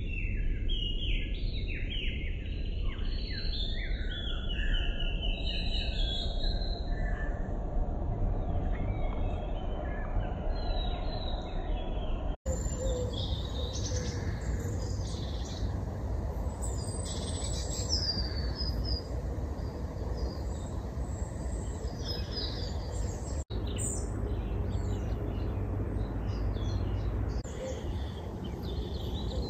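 Several wild birds chirping and singing in quick, overlapping phrases over a steady low outdoor rumble. The sound cuts out for an instant twice.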